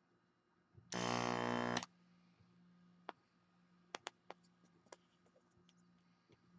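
Small MEDO VP0625 diaphragm vacuum pump on a desoldering iron, switched on for about a second: a loud, steady hum while it sucks molten solder off a through-hole joint, then it cuts off. A few light clicks follow.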